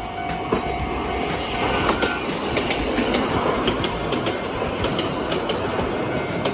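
A train running over a level crossing, its wheels clacking over the rail joints, the running noise building from about a second and a half in. A steady ringing tone, typical of the crossing's warning alarm, sounds at the start and fades under the train.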